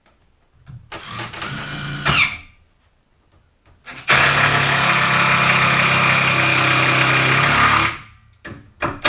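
Power drill driving a screw into a 2x4: a short run about a second in, a steady run of about four seconds from about four seconds in, then a couple of brief blips near the end.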